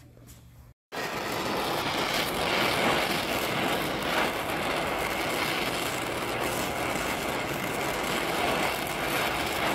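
Oxy-fuel cutting torch hissing steadily as it heats and cuts through a seized, rusted bolt on the cast-iron block's front cover, throwing sparks. The hiss starts about a second in.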